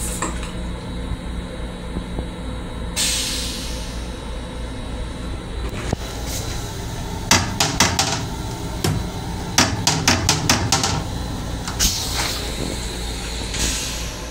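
Steady low rumble of a train car, with a run of sharp plastic clacks and knocks between about seven and eleven seconds in as the toilet seat is handled and lowered, and a few short hissing bursts.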